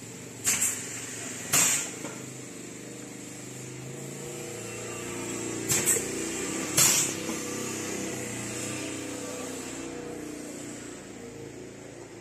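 Semi-automatic pneumatic piston filling machine running two fill cycles: each cycle gives a pair of sharp compressed-air hisses about a second apart, and the second pair comes about five seconds after the first. A steady low machine hum runs underneath.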